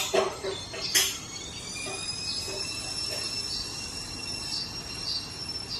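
Two sharp knocks, then from about two seconds in a steady high-pitched whine with several overtones, held nearly level.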